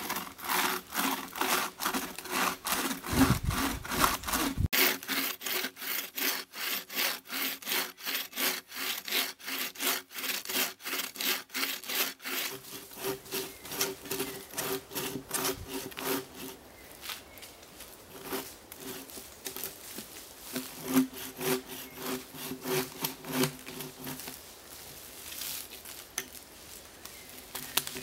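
Wooden-framed bucksaw cutting through a fallen log, rasping back and forth in steady strokes about two to three a second. The strokes grow quieter and less even after about sixteen seconds.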